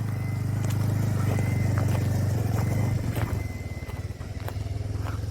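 Motorcycle engine running steadily at low revs, a little quieter from about three seconds in.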